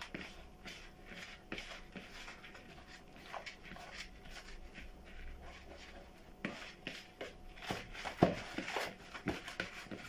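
Hands working a crumbly egg-and-couscous bird egg food in a plastic bowl: soft, irregular rustling and rubbing, with a slightly louder rub about eight seconds in.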